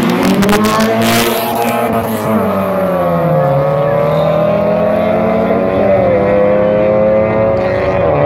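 A Honda Civic and a Nissan Sentra launching in a street drag race: the engines rev hard and accelerate away, the pitch climbing in each gear and dropping at the upshifts about two and three seconds in, then climbing more slowly as the cars pull into the distance.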